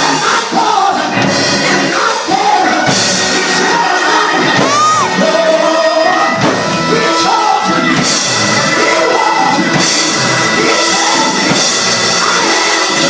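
Live church gospel music with singing, joined by shouts and whoops from the congregation, loud and unbroken.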